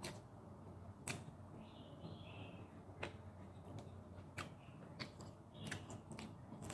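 Close-up eating sounds: quiet chewing of beef steak, with sharp wet mouth clicks and lip smacks about once a second.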